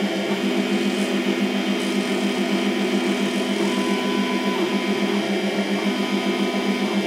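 Small CNC lathe's tool post milling attachment running, its motor spinning a 1.6 mm drill with a steady, fast-pulsing hum, while the drill is fed toward a brass part. A higher tone comes and goes a few times over the hum.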